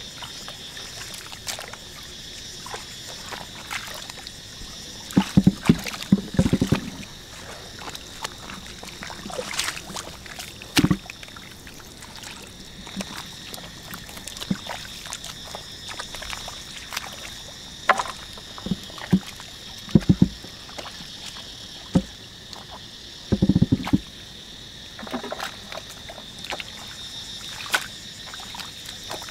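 Bare hands splashing and sloshing through shallow muddy water in a flooded rice paddy, groping for fish, in irregular bouts of splashes. A steady high-pitched chirring runs underneath.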